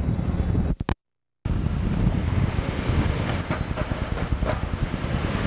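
Steady rumble of road traffic with cars passing on a city street. The sound drops out completely for about half a second, about a second in.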